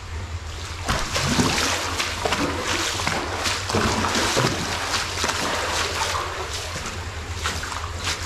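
Footsteps splashing and sloshing through shallow water, with many irregular splashes starting about a second in.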